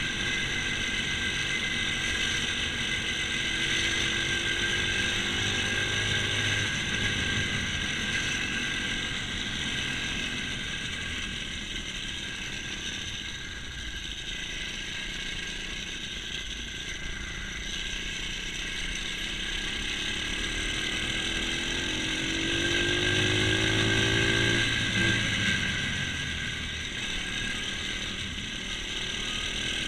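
Pit bike's small engine running while riding, rising in pitch as it revs up about three seconds in, again about twenty-two seconds in and near the end, over a steady high whine.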